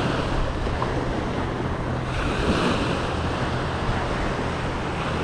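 Small surf breaking and washing up the beach, swelling a little as each wave runs in, with wind rumbling on the microphone.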